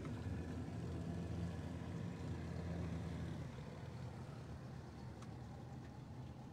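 Outboard motor of a small boat running steadily on floodwater, a low hum that eases slightly about halfway through.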